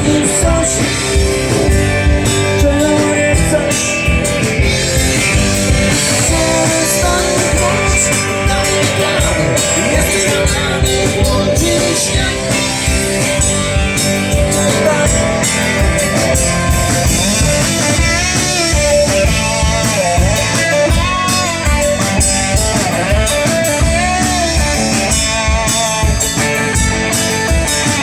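A band playing a bluesy rock song, with guitar to the fore. In the second half a lead line plays wavering, bending notes over a steady beat.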